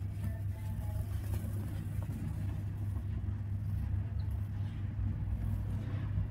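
Dry, powdery cement chunks being crumbled and rubbed apart by bare hands, a faint gritty rustle of falling dust over a steady low rumble.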